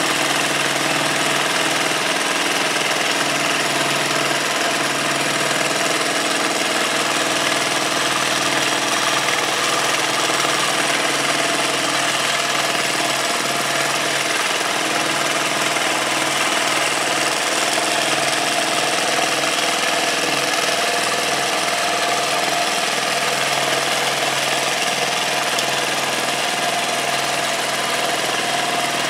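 Longarm quilting machine running steadily as it free-motion stitches, a continuous mechanical hum with no pauses.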